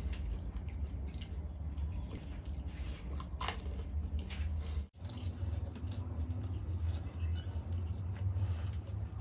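Close-miked chewing of dahi golgappa: crisp puri shells filled with yogurt, with crunchy and wet squishing bites and small mouth clicks over a steady low hum. The sound drops out for an instant about five seconds in.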